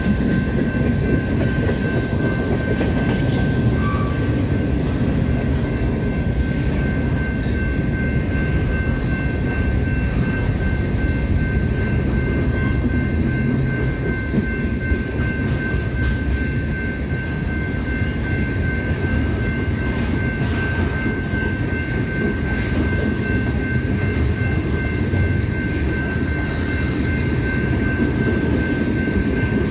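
Train rail cars rolling along the track: a steady, continuous rumble with a thin, steady high whine above it.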